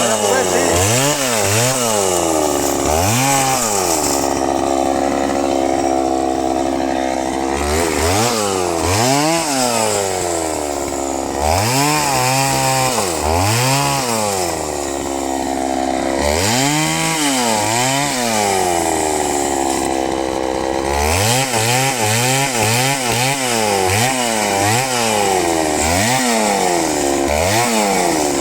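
Two-stroke chainsaw engine revved up and down over and over, its pitch climbing and dropping about once or twice a second. Twice it is held at high revs for a few seconds while the pitch sags slowly, as under load in a cut through the tree.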